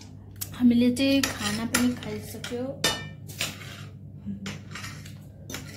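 Cutlery clinking against ceramic plates and bowls as people eat. There is a quick run of sharp clinks in the first three seconds or so, then sparser ones.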